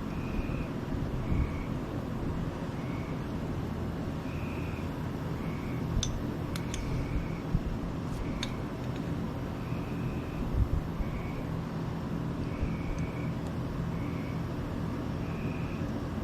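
Electric fan running with a steady hum. A few small metal clicks come from handling the scooter's brake caliper and pads, about six to ten seconds in. Faint high chirps repeat in pairs every second or so behind it.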